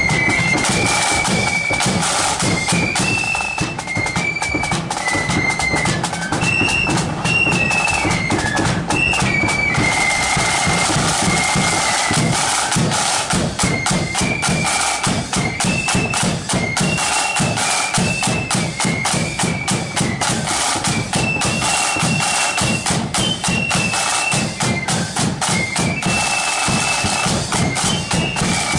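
Marching flute band playing a tune: flutes carry a high melody in unison over side drums and bass drum beating out the march.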